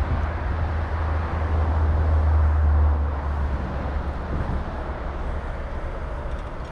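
Road traffic passing, with a deep engine rumble that is strongest at first and fades about three seconds in.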